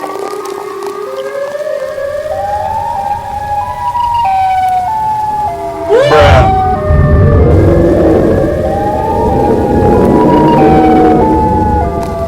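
Horror-film sound design: a loud wailing, siren-like tone that falls in steps, over and over. About six seconds in comes a sudden sweeping swoosh, and after it a deep rumble runs underneath.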